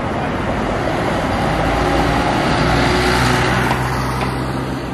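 A city bus drives past close by, its engine humming and its tyres on the road, amid steady street traffic. The sound swells to its loudest about three seconds in.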